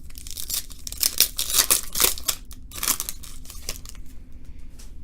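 Crinkling and rustling of trading-card packs and cards being handled: a quick run of short scratchy crackles that thins out about four seconds in.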